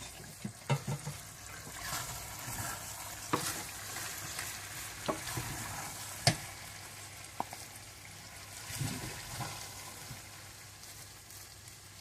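Spoon scraping and knocking against a cooking pot as cooked keema (minced meat with potatoes) is spooned out into a serving dish, over a faint steady sizzle of hot oil. Several sharp clicks stand out, the loudest a little after six seconds.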